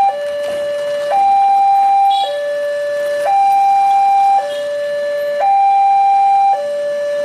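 Railway level-crossing warning alarm sounding a loud two-tone electronic signal, a higher and a lower tone alternating about every second. It warns that the barrier is closing for an approaching train.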